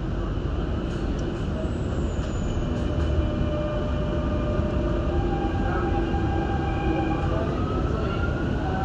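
Dubai Metro train pulling away from a station: a steady rumble of wheels and car body, with the traction motors' whine climbing in pitch in several steps as the train gathers speed.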